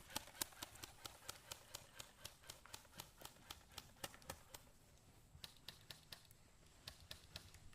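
A quick, even run of sharp, faint clicks, about four a second for roughly four and a half seconds, then a few scattered clicks near the end.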